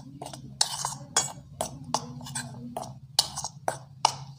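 A metal spoon scraping and clinking against a metal bowl as dry gram-flour mix is stirred, about two strokes a second, with a steady low hum underneath.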